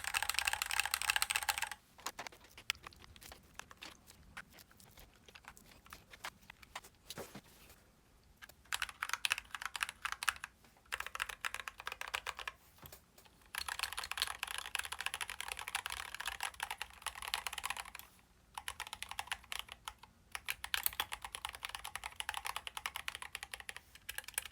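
Mechanical keyboard fitted with thick PBT MT3-profile keycaps being typed on. Fast runs of keystrokes are broken by short pauses and a few scattered single presses.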